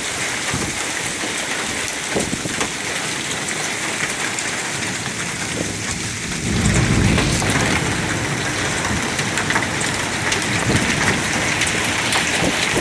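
Heavy rain pouring down with nickel-sized hail, scattered sharp ticks of hailstones striking through the steady hiss. A low rumble of thunder swells about six and a half seconds in.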